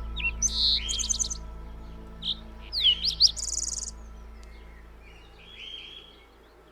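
Birds calling in short chirps, with a quick run of notes in the first second and a half and sweeping whistles and a buzzy call around three seconds in. Soft sustained background music with a low drone plays under them and fades out.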